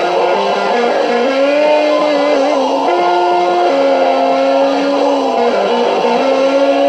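Distorted electric guitar playing long sustained notes that step from pitch to pitch.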